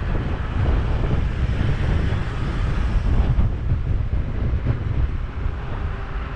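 Wind buffeting a GoPro microphone carried along at electric-unicycle riding speed: a loud, constant, low, gusting noise.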